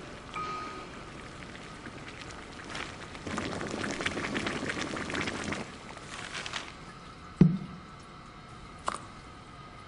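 Water splashing and bubbling for a couple of seconds, then a single sharp thump, followed by a lighter click near the end.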